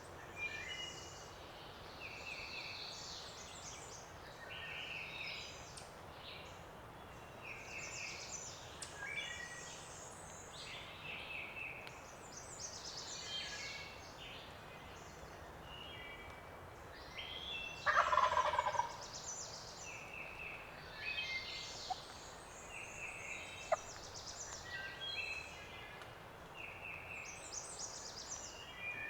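Wild turkey gobbling once, a loud rolling call about two-thirds of the way through, over songbirds singing and chirping throughout.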